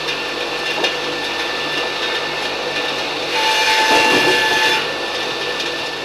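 Sawmill machinery running steadily with a low hum, its whine growing louder for about a second and a half past the three-second mark. A single knock comes about a second in.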